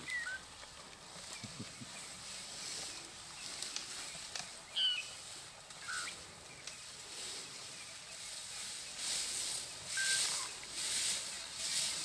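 Short, scattered bird chirps and whistles, with several bursts of rustling in dry grass and bush near the end as elephants feed.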